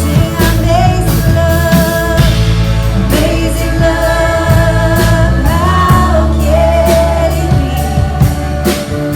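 Praise and worship song: singing over a band, with sustained bass notes and a steady drum beat.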